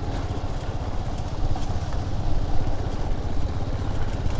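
Motorcycle engine running steadily at low speed, ridden along a rough dirt track, with a low even pulsing and light rattles from the bumpy surface.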